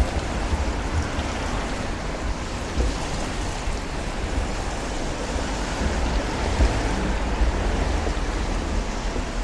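Steady noise of traffic on a wet road, tyres hissing past, with rain and a low rumble underneath.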